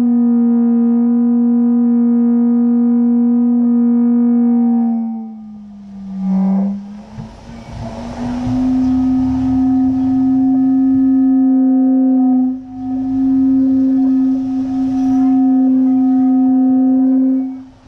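Feiyutech G5 gimbal's motors giving off a loud, steady tonal hum. It breaks off about five seconds in and returns a little higher in pitch a couple of seconds later, with a brief dip midway and some rustling noise. The hum is the motor-noise fault, which the owner says comes and goes.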